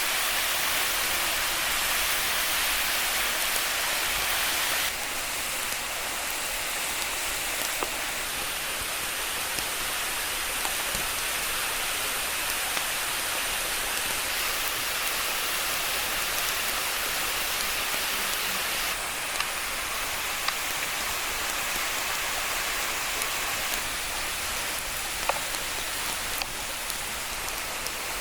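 A waterfall's steady rush of falling water, with a few faint light taps over it. The level drops a little in steps about five seconds in, past the middle, and near the end.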